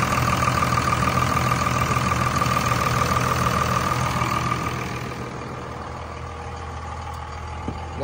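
A 2001 Dodge Ram's 24-valve Cummins inline-six turbo diesel idling steadily, with a constant high whine over the engine note. The sound grows quieter a little over halfway through.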